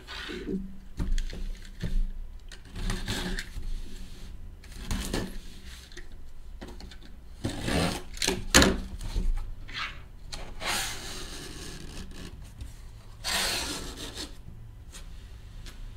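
A knife slicing along the packing tape of a cardboard case, then the cardboard flaps scraping and rustling as they are folded open, with a few sharp knocks a little past halfway.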